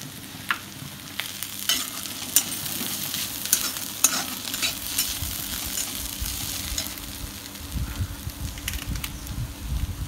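Onion-and-tomato masala gravy sizzling in a cast-iron kadai as it is sautéed and stirred, with a dozen or so sharp clinks of the stirring utensil against the pan. A low rumble comes in during the second half.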